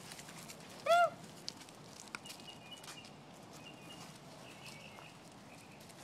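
A puppy gives one short, high yip about a second in. Faint high chirping follows in the background.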